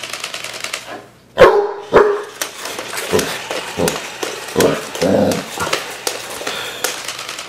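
Basset hound barking: two loud barks about a second and a half in, then a string of shorter, quieter woofs.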